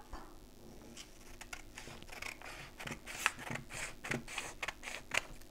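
Scissors cutting through a sheet of paper: a run of short, irregular snips.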